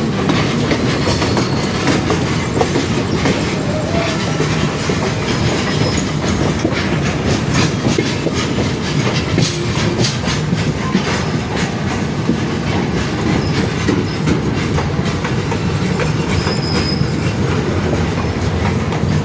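Train arriving at a station, running with a steady rumble and its wheels clattering over the rail joints in a continual string of clicks.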